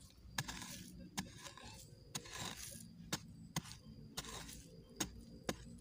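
A short-handled metal hoe chopping into dry, hard earth: about eight sharp strikes at irregular intervals of roughly half a second to a second, some followed by the short scatter of loosened soil clumps.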